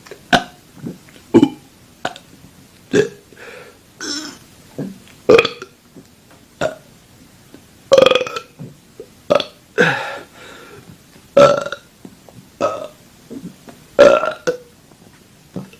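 A man burping over and over, about one belch a second. Most are short, a few are longer and louder.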